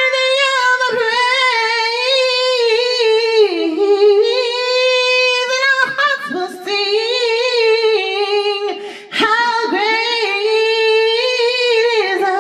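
A woman singing a cappella into a handheld microphone, loud and close: long held high notes with vibrato, sliding down in pitch a few times, with short breaths between phrases.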